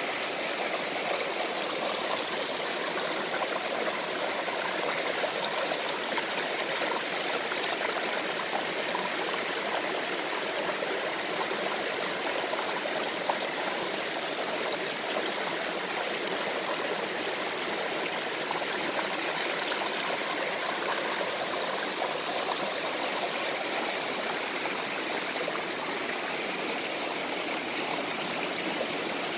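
Small waterfall and stream rushing and splashing steadily, a constant even wash of water noise.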